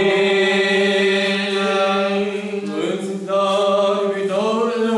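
Orthodox church chant: voices sing a long, drawn-out 'Amin' (Amen) as the response during the blessing of the baptismal water. The notes are held, and the melody moves to new pitches about three seconds in and again near the end.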